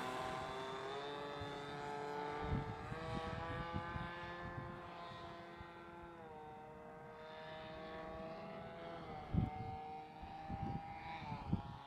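Nitro glow engine of a Hangar 9 Twist 40 RC stunt plane running in flight, its pitch stepping up and down a few times as the throttle and the plane's attitude change. A few short low thumps come through about two and a half seconds in and again near the end.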